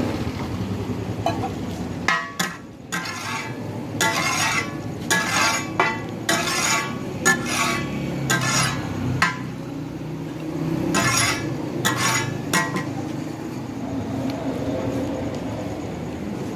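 Two metal spatulas hammering and scraping on a large flat griddle as meat is chopped for takatak, in quick clattering bursts that stop a few seconds before the end, over a steady background rumble.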